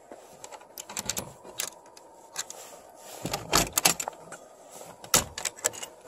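Metal clinks and rattles of a carabiner and hasp latch being undone on a wooden chicken-coop door, with a couple of louder knocks of the door being handled in the second half.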